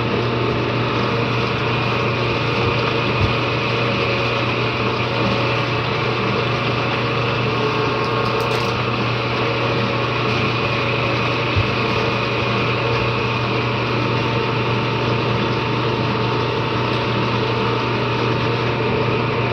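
Restored 18-inch LM dough sheeter running steadily, its electric motor and drive humming at one even pitch under a dense mechanical whirr as dough passes through the rollers. Two faint knocks, about 3 and 11 seconds in.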